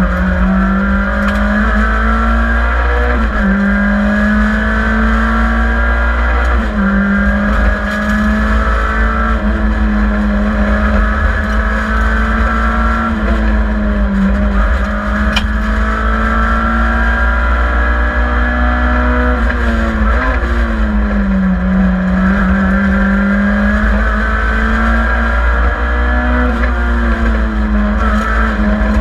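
Rally car engine at full throttle, heard from inside its stripped, roll-caged cabin. The engine note climbs through the revs and drops back sharply several times as the driver shifts and brakes for corners, over a steady rumble of road and tyre noise.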